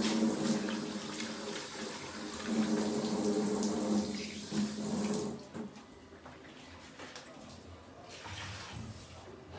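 Water running from a kitchen tap into a sink, a steady rush with a low hum under it, shut off about five seconds in.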